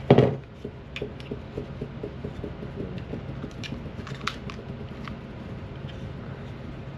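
A thump, then light plastic clicks and taps as a clip-on sun shade is fitted onto a DJI Osmo Pocket 3 handheld camera, over a low steady hum.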